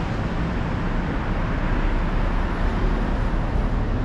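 Steady city street traffic noise: cars running and passing in a constant wash with a strong low rumble and no separate events.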